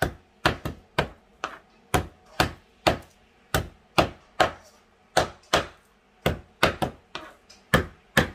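Garlic cloves being crushed on a chopping board: a run of sharp knocks, roughly two a second, somewhat uneven.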